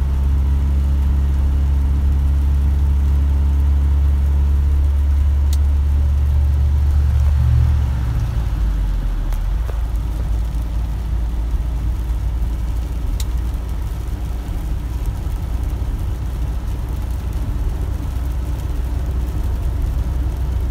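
Cargo truck's engine droning steadily, heard from inside the cab at highway speed on a wet road, with tyre and road noise. About eight seconds in, the engine note steps down and gets quieter. Two faint ticks are heard in the middle.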